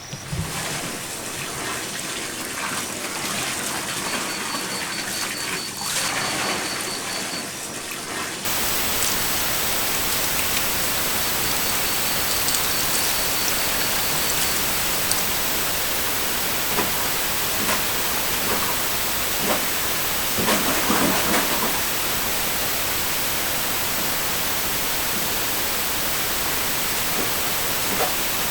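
Steady rain-like hiss. About eight seconds in it switches abruptly to a fuller, even rushing noise, with a few faint ticks and a brief swell later on.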